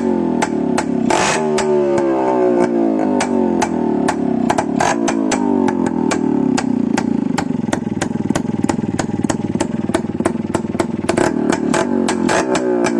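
Loud music: a heavily distorted electric guitar playing over a steady, fast drum beat, with repeated falling notes.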